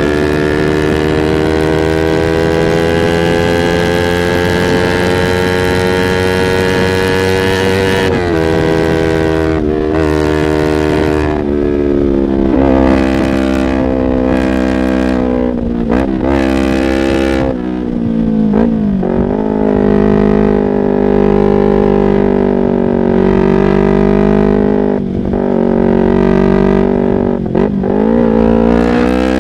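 Yamaha R25's parallel-twin engine running through a Proliner aftermarket exhaust while riding. The note climbs steadily for about eight seconds and then drops sharply. After that it dips and rises again several times.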